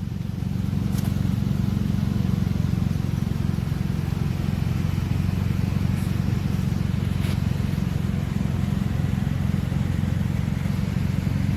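Shinco 12,000 BTU portable air conditioner running with a loud, steady low hum and a fast flutter.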